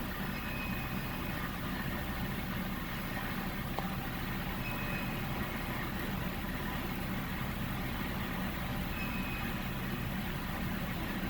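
A steady low mechanical hum runs throughout, with a faint click or two from a lock pick and tension wrench working the pins of a euro cylinder lock.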